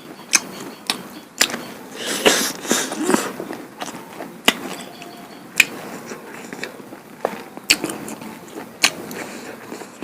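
Close-miked eating sounds of someone chewing duck curry and rice-flour pitha: wet chewing and mouth noises with sharp smacking clicks every second or so, and a busier stretch of chewing about two seconds in.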